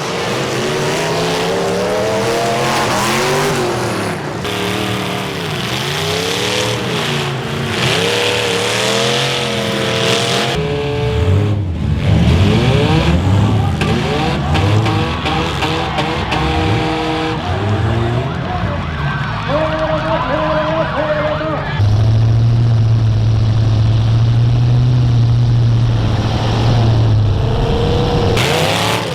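Demolition derby car engines revving hard, their pitch rising and falling as the cars ram and back off, in several abrupt cuts. Near the end one engine is held at steady high revs for about five seconds.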